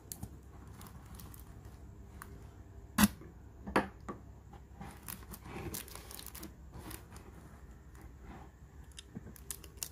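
Handling noise from a Zippo lighter being put away and the next one taken up. There is a sharp click about three seconds in and a smaller knock just after it, then faint rustling and small clicks.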